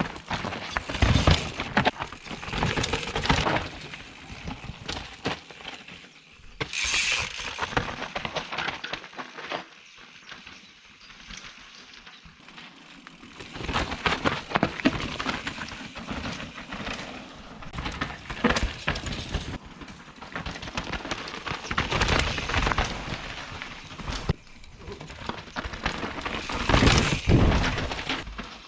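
Mountain bike ridden fast down a dirt trail: tyres rolling and scrabbling over the ground with a run of sharp knocks and rattles from the bike over bumps, the noise swelling and easing as the pace changes.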